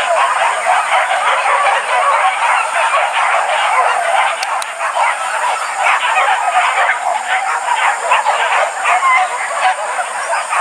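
A pack of hunting dogs barking and yelping over one another without a break, many voices at once.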